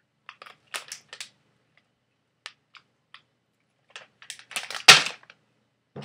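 Plastic bag of Halls cough drops being handled and crinkling: scattered sharp crackles, then a dense, louder burst of crinkling about five seconds in.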